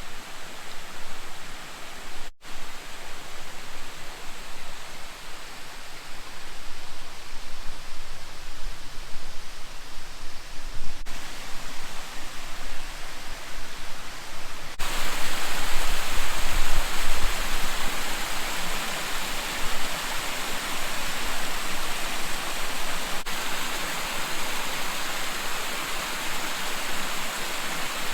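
Steady rush of a waterfall, the 60-foot Clifty Falls, with no clear pitch. It jumps suddenly to a louder, brighter rush about halfway through.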